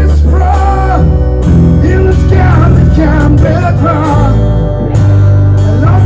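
A song with singing over guitar and a steady bass line.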